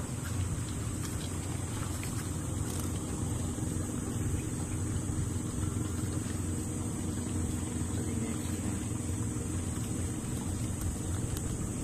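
A motor running steadily, a low even hum, with a constant high hiss above it.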